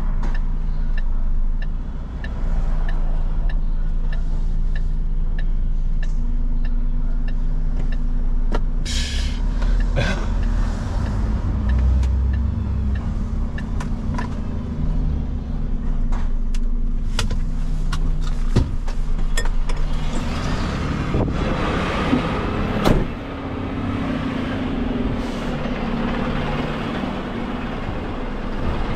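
Refuse truck engine running steadily as the truck drives and pulls up, with a short burst of air hiss about nine seconds in and scattered clicks. A sharp knock comes a little past two-thirds of the way through, after which the engine is heard more quietly.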